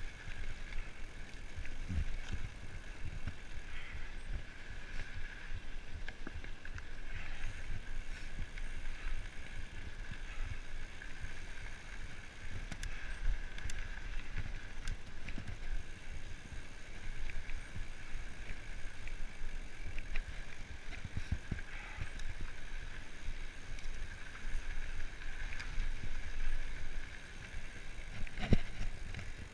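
Mountain bike rolling over a dirt trail: an uneven low rumble of the tyres on the ground, carried through the handlebar-mounted camera, over a steady high-pitched hum, with a couple of sharp knocks near the end.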